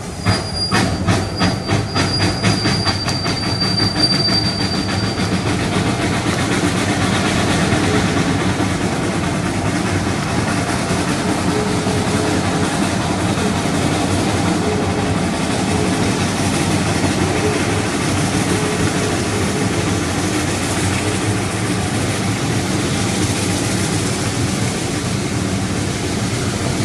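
Shay geared steam locomotive starting away: sharp exhaust chuffs at about four a second over the first few seconds, with a thin high squeal alongside. The chuffs then merge into a dense, steady rumble of fast exhaust and running gear as the engine works under way.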